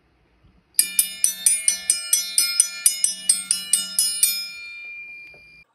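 Short intro music: a quick, even run of bright, bell-like struck notes, about four or five a second. The notes stop after about three and a half seconds and the last one rings on and fades away.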